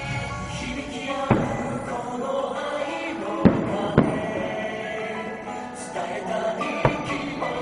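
Music with singing over loudspeakers, with four sharp firework bangs cutting through it, the loudest two about half a second apart midway.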